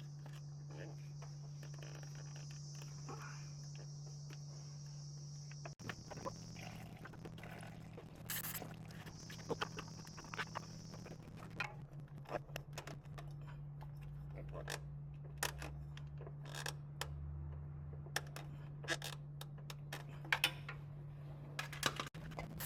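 Scattered clicks and light knocks of hand work on the oil filter under the truck, over a steady low hum, with crickets chirring at times.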